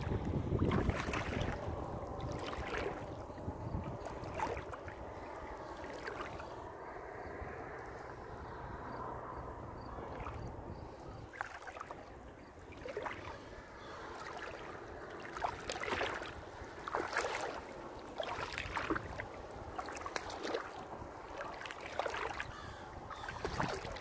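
Shallow seawater sloshing and splashing in irregular bursts, with wind on the microphone.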